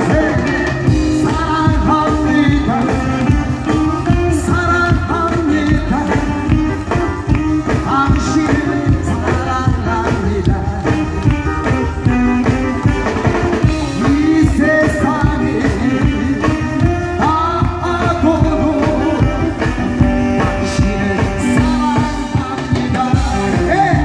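A man singing a Korean pop song into a handheld microphone over a live band of drum kit, electric guitars and keyboard, amplified through PA speakers.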